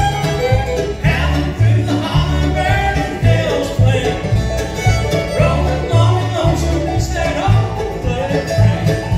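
Bluegrass band playing live: banjo, mandolin, acoustic guitar, fiddle and upright bass, with the bass keeping a steady beat of about two notes a second.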